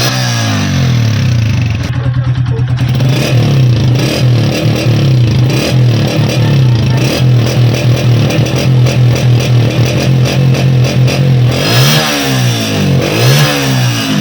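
Honda CG125 single-cylinder four-stroke engine running with the throttle being blipped, the revs dipping and rising near the end. It is a new bike with a stock-pattern silencer, and the mechanic finds its exhaust note too weak.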